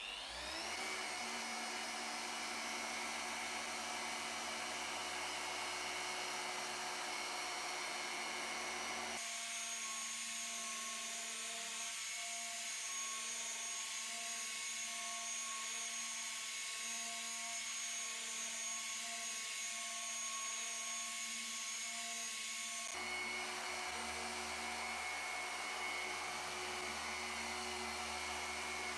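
Electric machine polisher spinning up and then running steadily on car paint, correcting swirl marks and scratches; its tone changes abruptly about nine seconds in and again a few seconds before the end.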